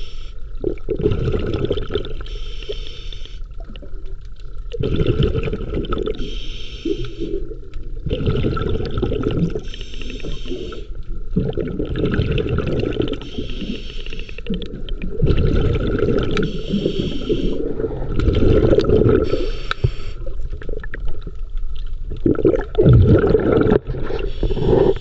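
Scuba diver breathing through a regulator underwater: a hissing inhale alternating with a gurgling burst of exhaled bubbles, a breath about every three seconds.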